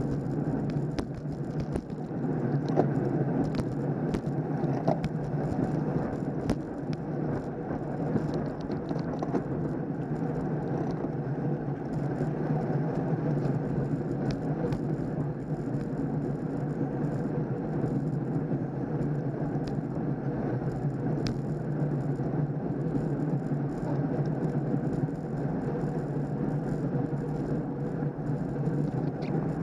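Steady rumble of wind and road noise on a camera riding with a pack of road-racing bicycles, with scattered small clicks and rattles.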